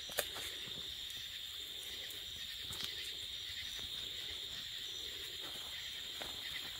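Night insects, crickets, singing in a steady high continuous chorus, with a sharp click just after the start and faint rustling underneath.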